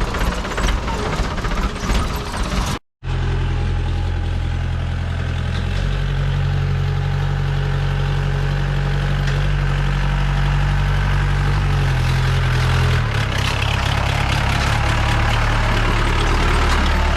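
Jeep engine running steadily with a low, even hum. The sound breaks off briefly about three seconds in, and the engine note changes slightly around six and thirteen seconds.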